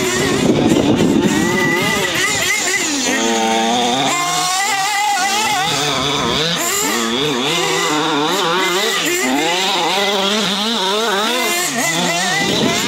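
Radio-controlled off-road buggy's small engine running hard, revving up and easing off again and again as it laps the dirt track, its pitch rising and falling quickly.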